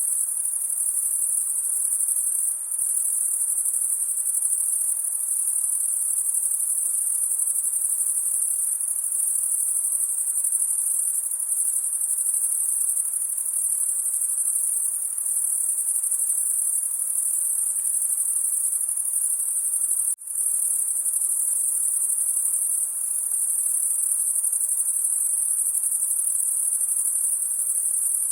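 Dense, unbroken chorus of crickets on a summer night, a steady high-pitched trilling. The whole sound cuts out for a split second about twenty seconds in.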